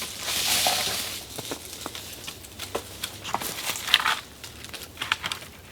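Rustling and crunching of leafy branches and forest litter, with scattered light knocks of wooden poles, as cut poles are set against a shelter frame. A swell of rustling comes in the first second or so, and a crackly patch about four seconds in.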